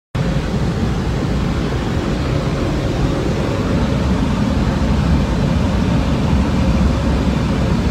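Steady, loud rumble and rush of air inside the cabin of a small single-engine propeller plane in flight.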